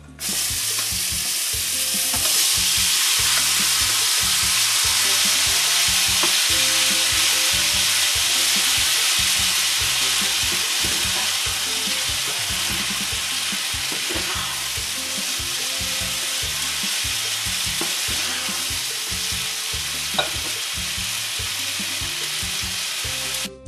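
Short noodles hitting hot oil in a nonstick wok, sizzling loudly at once and then frying steadily while they are stirred with a spatula. The sizzle eases a little later on, and the spatula knocks against the pan a few times.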